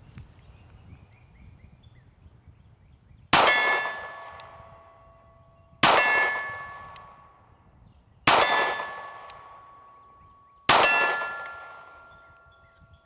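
Four slow, evenly paced 9mm shots from a Smith & Wesson Equalizer pistol, about two and a half seconds apart. Each one hits a steel plate target, which gives a bright metallic ring that fades slowly.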